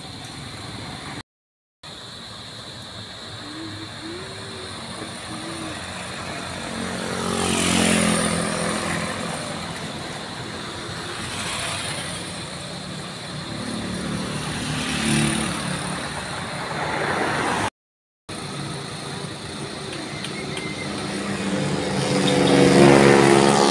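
Passing road traffic: vehicles, among them a motor tricycle and a motorcycle, drive by one after another, each swelling and then fading, with the loudest pass near the end. The sound cuts out briefly twice.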